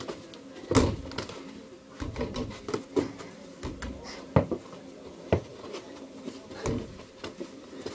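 Irregular thuds and knocks from a mini-hoop basketball game: a small ball hitting the backboard, rim and floor, with feet and bodies bumping. A faint steady hum lies underneath.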